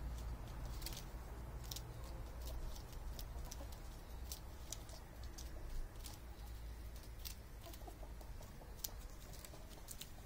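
Flock of chickens feeding on kale, with soft clucking and irregular sharp clicks of beaks pecking at the leaves, over a low rumble.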